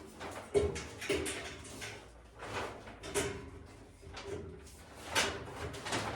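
Steel rack parts (shelves and square-tube uprights) clunking and scraping as they are handled and fitted together: a series of irregular metal knocks, several with a brief ring.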